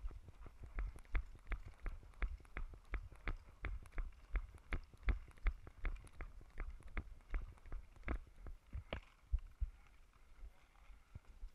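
Footsteps on grass at a brisk walk, about three a second, each with a knock of gear and the body-worn camera jostling; they thin out near the end.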